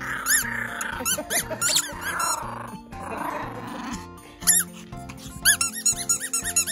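Small rubber squeaky ball squeaking again and again, in quick runs of short high squeaks, as a Pomeranian puppy bites and tugs on it. Through the first few seconds the puppy growls in play. Background music runs underneath.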